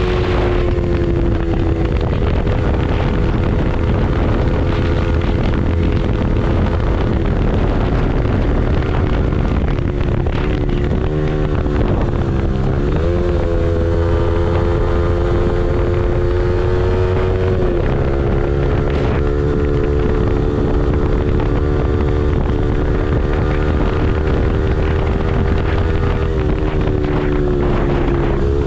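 Yamaha R15M's single-cylinder 155 cc engine running under way at road speed, with wind rushing over the microphone. The engine note holds steady, wavers and dips a few times about ten to thirteen seconds in, and steps down at about eighteen seconds.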